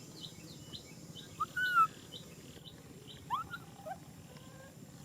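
A baby macaque crying out with short, high, rising calls: the loudest about a second and a half in, another pair around three and a half seconds in. Rapid high chirping, as of birds, repeats underneath throughout.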